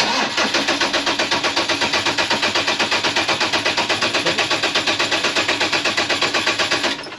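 Sailboat's inboard diesel engine turning over on a start attempt with its repaired fuel injection pump just refitted: an even, loud chugging of about eight beats a second that cuts off suddenly after about seven seconds.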